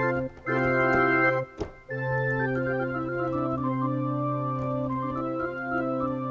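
Yamaha MX49 keyboard playing a pipe organ preset: sustained organ chords, cut off briefly twice in the first two seconds, then one long held chord with notes moving within it.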